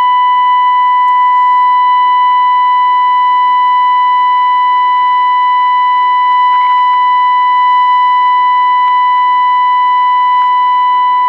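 Steady test tone from the Zenith Royal 51 transistor radio's speaker: the signal generator's modulation, demodulated by the radio during 10.7 MHz FM IF alignment. It holds one unwavering pitch at a constant level, with a few faint ticks in the second half.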